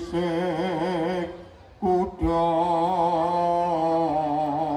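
A single voice singing an unaccompanied, chant-like melody: a wavering, ornamented phrase in the first second, a short pause, then one long held note.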